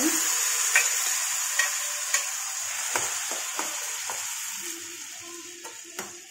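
Pressure-cooked mashed vegetables sizzling as they are tipped into hot melted butter in a stainless steel pan. The hiss is loudest at first and gradually dies down, with a few taps and scrapes of a spoon against the steel.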